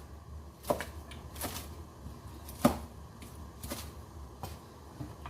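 Knife cutting vegetables on a cutting board: a handful of separate, unevenly spaced strokes about a second apart, cut into medium-sized pieces.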